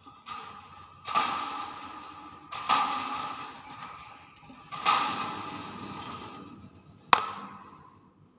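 Pet hill myna making a series of sudden, harsh noisy calls, four loud ones, each fading over about a second, the last short and sharp.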